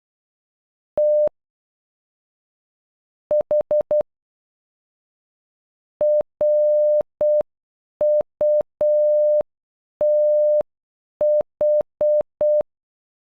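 Morse code beeps from a single steady electronic tone keyed into dots and dashes. First a dash and then four quick dots (the letters T and H); after a pause of about two seconds, the whole name RUTH (.-. ..- - ....) is spelled out again at half speed, with longer dashes and wider gaps.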